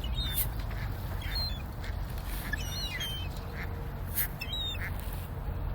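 A flock of ducks quacking in short calls spread through a few seconds, with quick high chirping calls in between.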